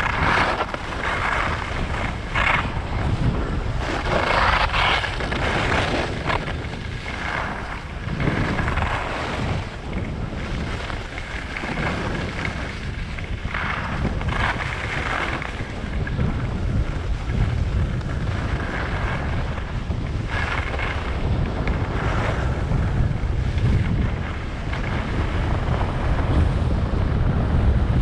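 Wind buffeting the microphone of a skier going downhill, with the hiss and scrape of skis on packed snow that swells and fades with each turn.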